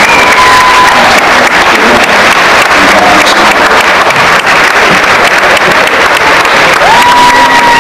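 Audience in a gymnasium applauding and cheering steadily, with a long high shout near the start and another near the end.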